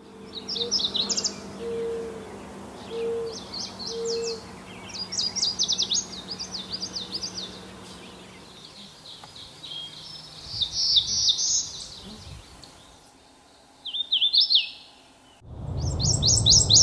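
Wood warblers singing: repeated bouts of high, rapid songs made of quick down-slurred notes. A short low hooting note sounds four times in the first four seconds.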